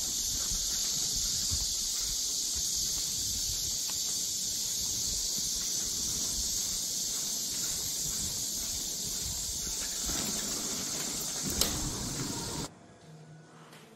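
A dog stroller rolls over stone paving. Its wheels rumble with irregular low knocks under a steady, high-pitched hiss. There is one sharp click near the end, then the sound drops away abruptly.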